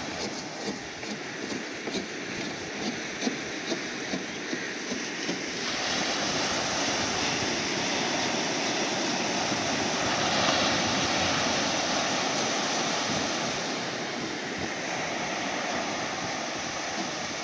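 Ocean surf breaking and washing up a sandy shore, a steady rush that swells louder about six seconds in and peaks around the middle.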